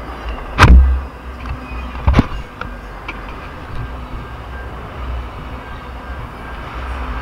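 Freight train of autorack cars rolling past close by with a steady rumble, broken by two loud bangs, the first about a second in and a second, slightly weaker one a second and a half later.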